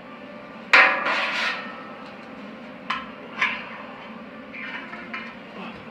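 Metal clanks on an old steel hot water tank being worked on: one loud clank about a second in that rings briefly, then two lighter clinks about three seconds in.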